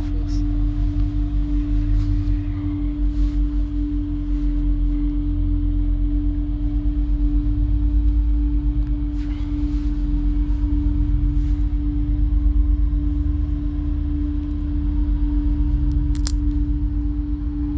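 Sustained suspense drone from a horror film score: one steady, slowly pulsing tone held over a deep rumble. A single sharp click sounds about sixteen seconds in.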